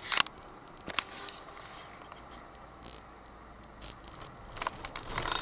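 Camera handling noise inside a moving car's cabin: sharp knocks at the start and about a second in, then a cluster of rustling and bumping near the end, over steady low road noise.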